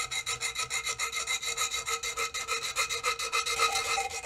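A small metal file rasping in quick, short strokes, several a second, on the freshly hacksawed steel muzzle of a double-barrelled shotgun, deburring the cut edges of the bores. A steady ringing tone sounds under the strokes.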